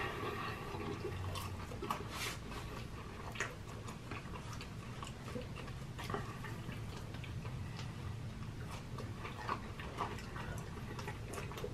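Close-miked chewing of a burger: faint, irregular wet clicks and smacks from the mouth.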